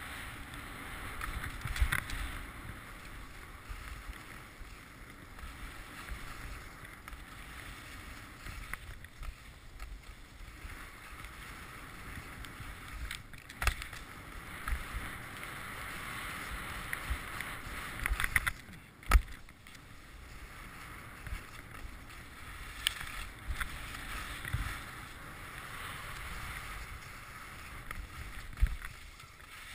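Skis hissing and scraping over snow during a downhill run, the hiss swelling and fading with the turns, with a few sharp knocks along the way.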